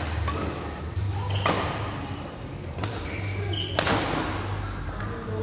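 Badminton rackets striking a shuttlecock during a doubles rally: three sharp hits about a second apart, each echoing through the large hall.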